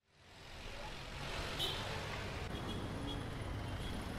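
City street ambience with car traffic running, fading in from silence over the first second. A brief high-pitched sound stands out about one and a half seconds in.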